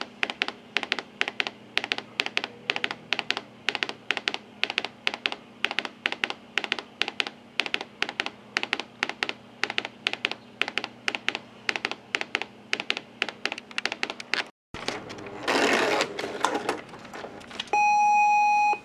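Brother Intellifax 620 thermal fax machine printing a received page. The paper is stepped forward one line at a time in rapid, regular clicking, about four clicks a second. The clicking stops about 15 seconds in. A brief burst of noise follows, then a short steady electronic beep near the end.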